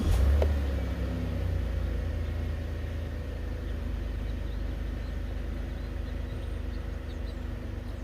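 2014 Chevrolet Impala engine starting: it catches with a brief flare right at the start, then settles into a steady idle.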